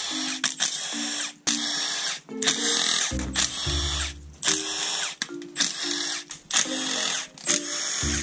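Cordless power driver spinning out valve cover bolts in short trigger bursts, about two a second, each a whine whose pitch varies from burst to burst.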